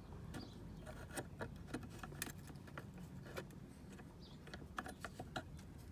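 Scattered light clicks and small metallic knocks of hand-handled hardware: door handle parts and a bar being fitted and moved about.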